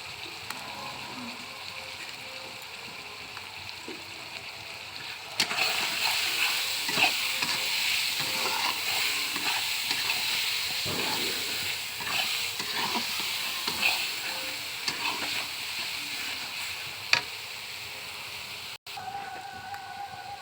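Food frying in a pan with a hissing sizzle and the clicks and scrapes of stirring. The sizzle turns much louder about five seconds in, then gradually eases off.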